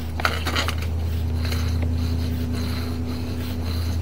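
Sewer inspection camera's push cable being pulled back through the pipe, with scraping and rattling in the first second over a steady low hum.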